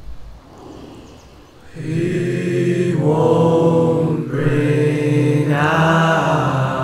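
Multi-tracked a cappella vocal harmony: one man's voice layered into many parts singing sustained chords. After a quiet opening, the stacked voices swell in about two seconds in, then move to new chords twice.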